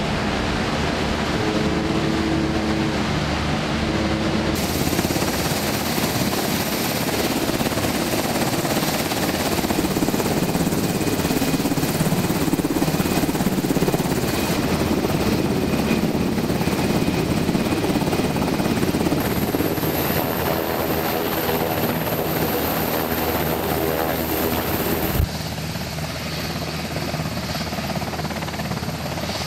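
Military helicopter turbines and rotors running loud and steady on a ship's flight deck, the sound shifting abruptly a few times as the shots change.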